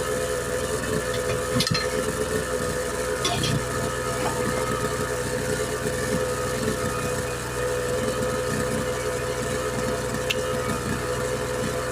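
A steady machine hum made of several constant tones, with a few sharp clicks about two, three and ten seconds in.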